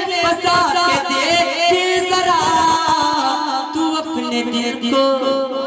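A man singing a naat into a microphone, drawing out long, gliding notes between lines of the verse.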